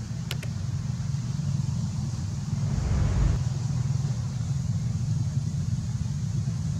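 Steady low rumble, with a brief louder whoosh about three seconds in.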